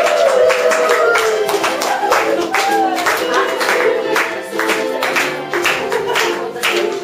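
Music with a steady beat and held chords, with voices singing along in places.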